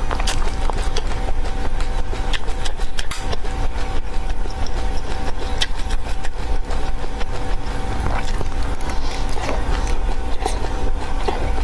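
Dry seeds crunching as they are chewed, with irregular sharp crackles over a steady low hum.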